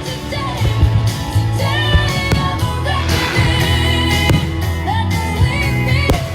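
Pop song with a singing voice over a steady bass line and sharp beats.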